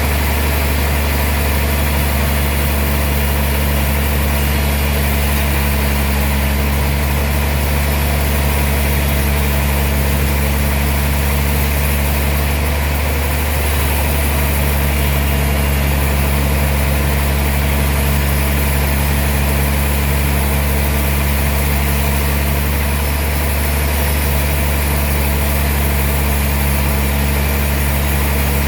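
Sawmill machinery running with an unbroken, steady deep hum.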